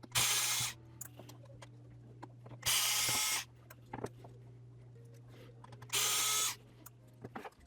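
Small electric screwdriver whirring in three short runs, about three seconds apart, backing out the screws that hold the thumbstick board of a remote controller. Light clicks and taps of the screws and parts come between the runs.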